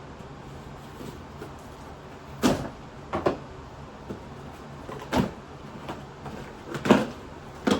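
A cardboard shipping box being opened and its packaging handled by hand: five short scrapes and rustles of cardboard and packing material.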